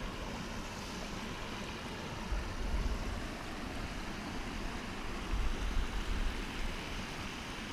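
Wind rushing over the camera microphone: a steady hiss with low rumbling gusts, a little stronger about two and a half and five and a half seconds in.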